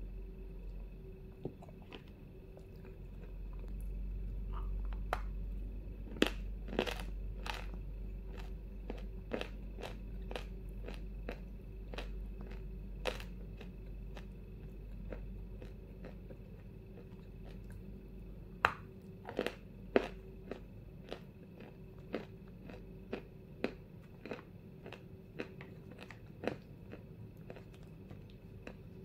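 Close-miked crunching bites and chewing of dry edible chalk (Vasilpolye chalk): sharp crisp cracks scattered throughout, with the loudest clusters about six to seven seconds in and again around nineteen to twenty seconds, and softer chewing between them. A steady low hum runs underneath.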